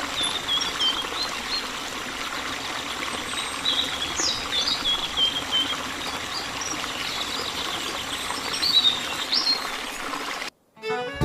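A steady trickle of running water with small birds chirping over it. Near the end it cuts off and music begins.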